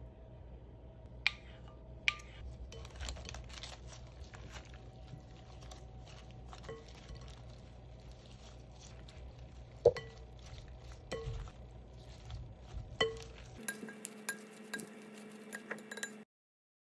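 Salad servers clinking against a glass mixing bowl while tossing a salad in yogurt dressing, with the leaves rustling; a handful of sharp clinks ring briefly off the glass, the clinking gets busier later on, and it all cuts off suddenly near the end.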